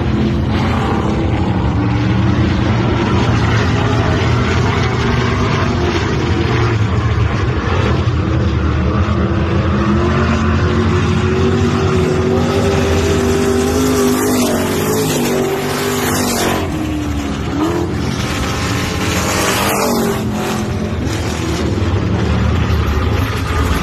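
Several pure stock dirt-track race cars' engines running laps, the pitch rising and falling as the cars go around the oval.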